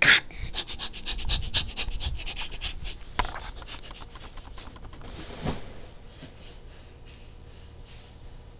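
A woman panting in quick, short breaths, as if in pain. The breathing dies down after about five and a half seconds.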